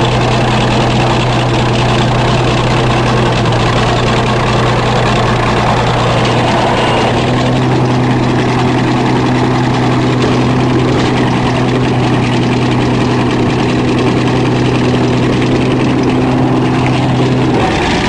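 Crawler bulldozer engine running steadily, heard up close from the machine. Its note rises slightly about seven seconds in.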